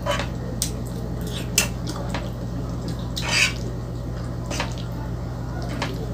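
Metal fork scraping and tapping in a nonstick frying pan as creamy spaghetti is twirled and lifted, with wet, squishy pasta noises. The sound comes as a handful of short clinks and scrapes, the longest a little past halfway, over a steady low hum.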